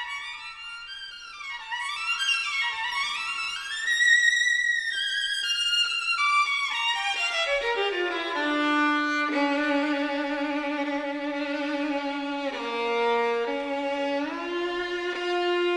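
Background music: a violin melody with sliding high notes, then a falling run about halfway through into long held lower notes.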